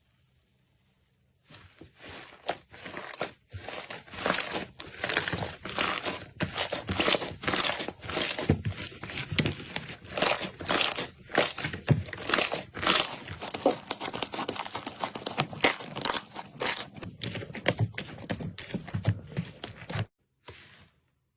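Slime being worked by hand: a dense, irregular run of crackling and popping clicks that starts about a second and a half in and cuts off abruptly near the end.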